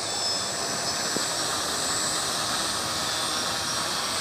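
Quadcopter's electric motors and propellers spinning while it sits on the ground: a steady whirring rush of air with a thin high whine.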